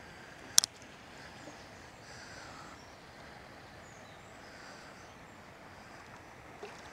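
Faint birdsong over a low outdoor hush, with one sharp click about half a second in.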